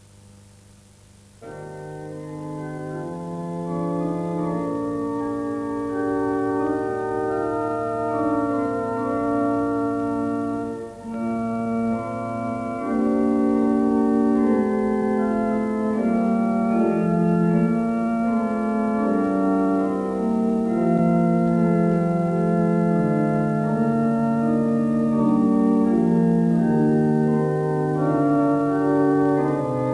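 Pipe organ playing slow, held chords over a moving bass line. It comes in loudly about a second and a half in, with a brief break between chords near the middle.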